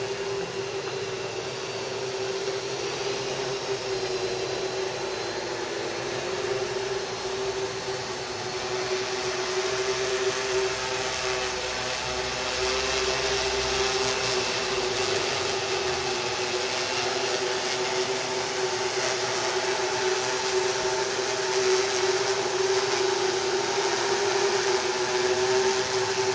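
Hexacopter's six 2836 750kv brushless motors spinning 12x4.5 propellers, a steady hum of constant pitch with a whirring hiss above it, growing a little louder in the first half as the craft hovers close.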